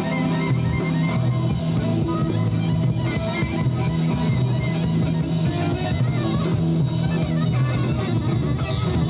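Instrumental music with sustained low bass notes that shift in pitch.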